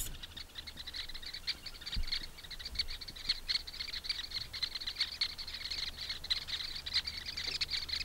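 Sociable weavers chattering as a flock: a dense, continuous stream of short, high chirps, many a second.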